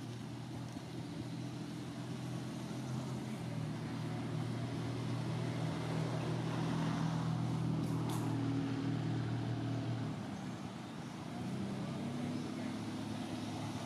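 Engine hum from a passing motor vehicle, growing louder toward the middle and falling away about ten seconds in, with a second engine sound rising soon after. A single sharp click comes about eight seconds in.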